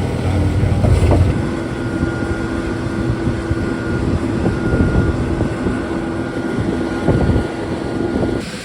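Heavy concrete-pour machinery, such as a concrete pump truck and ready-mix trucks, running steadily with a low rumble and a steady whine. The sound drops off abruptly near the end.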